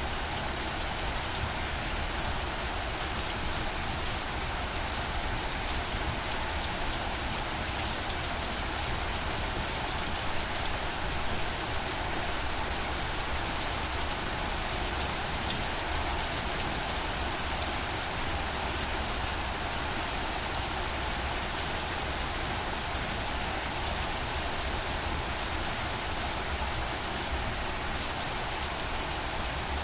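Steady rain falling on a surface, a constant hiss with fine drop patter and a low rumble underneath.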